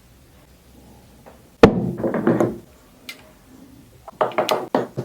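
Thumps and knocks from handling a party speaker and its packaging: one sharp knock about one and a half seconds in, then a quick run of clicks and knocks near the end.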